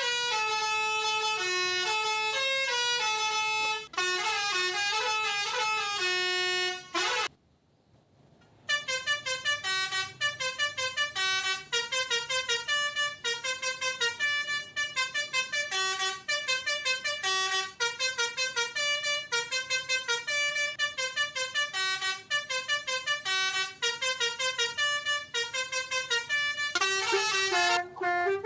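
Pianika (melodica) playing a telolet basuri bus-horn tune: a melody of held reedy notes, a break of about a second and a half, then a long run of fast, short repeated notes, ending on held notes again.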